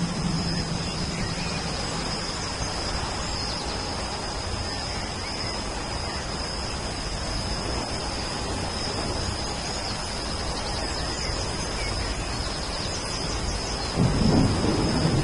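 Steady rain with a continuous high-pitched hum and a few faint bird chirps. A low rumble of thunder begins about a second before the end.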